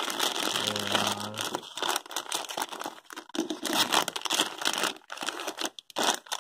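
Plastic packaging bag crinkling and rustling in a run of short, irregular crackles as hands handle it and dig through it.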